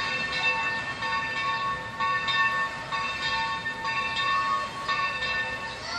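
Steam locomotive's bell ringing, struck about once a second, each stroke's tones ringing on until the next.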